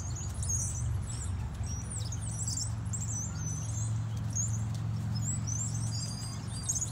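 Many small birds chirping and twittering at once, over a steady low hum.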